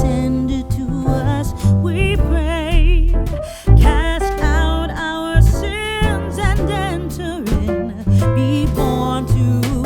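Background music: a song with a singing voice with vibrato over guitar and a steady bass line.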